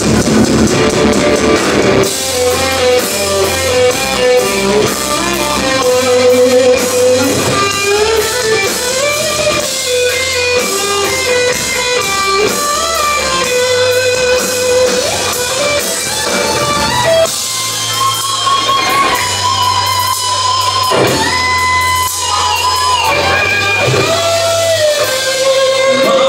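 Live rock band playing an instrumental break, led by an electric guitar whose sustained lead notes bend up and down over the bass and drums.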